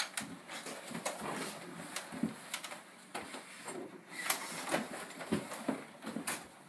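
Footsteps and the rustle and knock of clothing and gear as several people move through a narrow hallway: irregular soft knocks and rustles, with a sharper click a little over four seconds in.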